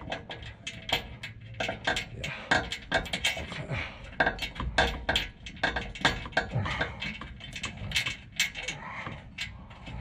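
Irregular metallic clicks and clinks of tools and hitch mounting bolts being handled and threaded in by hand.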